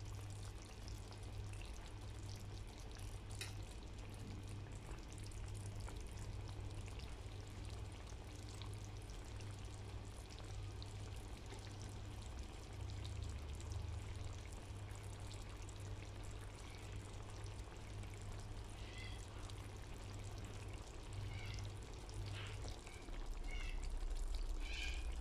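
Adobo sauce simmering and bubbling in a wok around chicken pieces and boiled eggs, a steady wet trickling sound over a low, steady hum. A few short high-pitched sounds come near the end.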